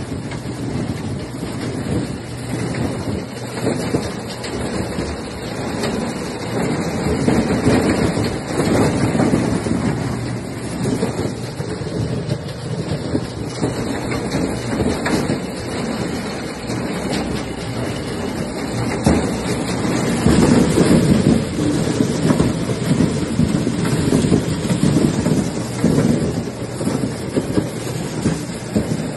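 Ear-corn elevator running: its chain and flights rattle continuously while ears of corn clatter and tumble along the metal trough.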